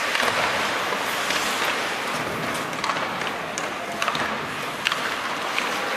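Ice hockey game sounds: skates scraping on the ice under a steady rink hubbub, with a handful of sharp clacks of sticks and puck, and a faint shout about four seconds in.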